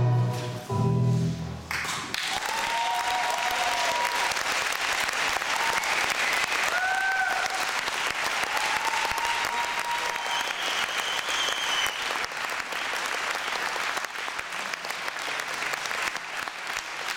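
Recorded music with violin and accordion ends on its final chords about two seconds in, and an audience then applauds, with a few shouted cheers over the clapping.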